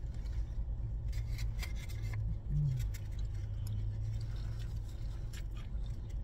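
Close chewing of a corn-shell taco and handling of its paper wrapper: scattered small crunches, clicks and rustles over a low, steady hum inside the car. A short hummed voice sound comes about two and a half seconds in.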